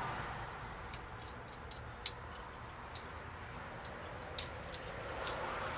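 Light, irregular clicks and clinks of a tree saddle's strap hardware as the straps are handled and looped around the body, about ten small ticks spread unevenly over a few seconds.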